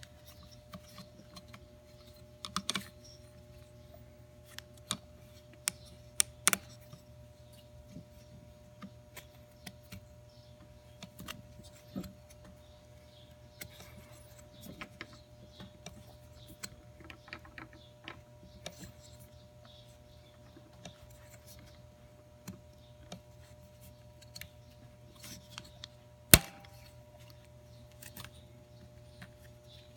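Scattered small clicks and taps of hands and a screwdriver working a ribbed drive belt onto a metal pulley, with a few louder knocks in the first seven seconds and one sharp loud clack about 26 seconds in. A steady low hum runs underneath.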